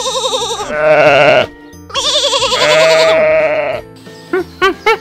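Sheep and goat bleating: two long, wavering bleats. Near the end a run of short, rising hoots begins.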